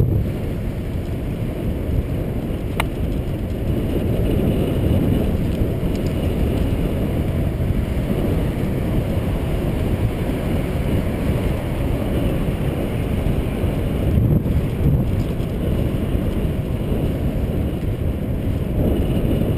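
Steady low wind rumble buffeting the microphone of a bicycle-mounted camera, mixed with the bicycle's tyre noise on the asphalt path. A single light click about three seconds in.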